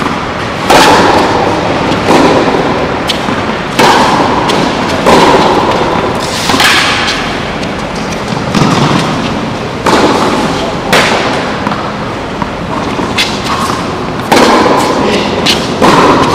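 Tennis ball struck back and forth by rackets in a rally, with bounces on the hard court: a sharp pock about every one to one and a half seconds, each echoing under the covered hall's metal roof.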